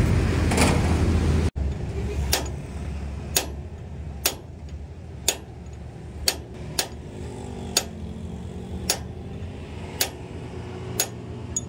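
Hammer striking a steel punch held against a truck's wheel hub, about ten sharp metal blows at roughly one a second. In the first second and a half, before the blows begin, there is a low rumble.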